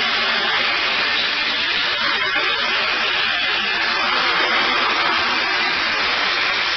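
The engine of a 1974 Toyota Land Cruiser FJ40 running steadily, heard as a loud, even noise.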